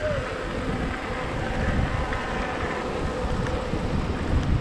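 Wind buffeting the microphone, with a faint steady hum underneath.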